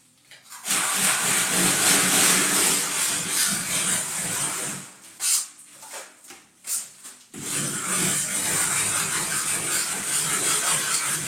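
Hand float rubbing over freshly applied stone-texture decorative plaster, a gritty scraping in two long stretches with a short pause between them: the first smoothing pass of the finish.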